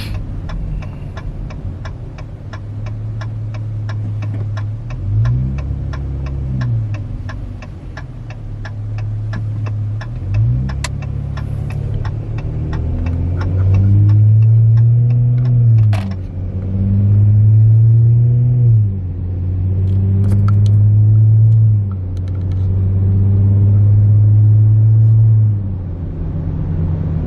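Dodge Charger V6 with its resonators deleted, heard from the cabin while driving: a steady low exhaust drone that rises in pitch as the car accelerates and drops back, several times, getting louder in the second half. A fast, even ticking, about three a second, runs through the first half.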